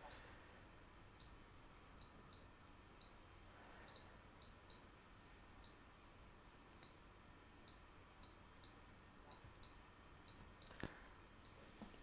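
Faint computer mouse clicks, irregular and sharp, a couple of dozen spread through, with one louder knock near the end.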